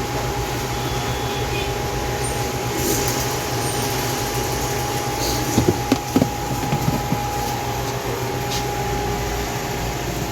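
Steady hum of a shop's background, with a constant held tone over an even hiss, and a few short clicks about six seconds in.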